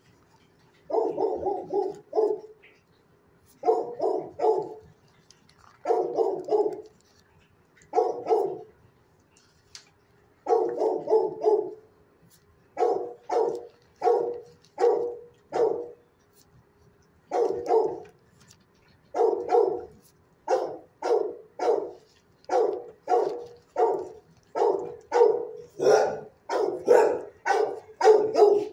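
A dog barking over and over, at first in short runs of two or three barks separated by pauses of a second or two, then from about two-thirds of the way in a steady string of single barks, roughly one or two a second.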